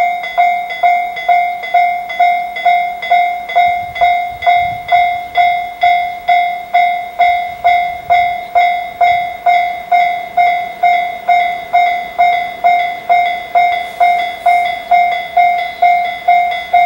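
Electronic railway level-crossing warning bell clanging steadily at about two strikes a second, a fixed ringing tone repeating without change as a train approaches.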